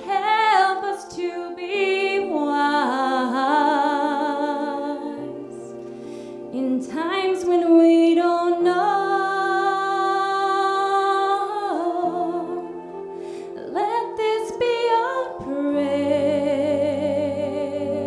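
A woman singing a slow song into a microphone, holding long notes with vibrato, over soft held instrumental chords.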